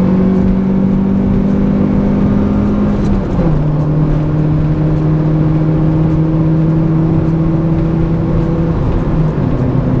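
Honda Civic's D16Y8 1.6-litre four-cylinder engine heard from inside the cabin under way. The engine note climbs slightly, then drops about three seconds in as the car is shifted up a gear, runs steadily, and drops again near the end with another gear change.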